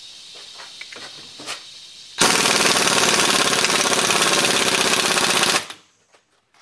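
Impact wrench hammering rapidly for about three and a half seconds, then stopping abruptly. It is driving the forcing screw of a ball joint press to push the cap out of a rusted U-joint. A faint steady hiss comes before the hammering starts.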